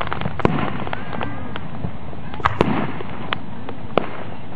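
Aerial firework shells bursting: about six sharp bangs at uneven intervals, two of them in quick succession about two and a half seconds in, over steady background noise.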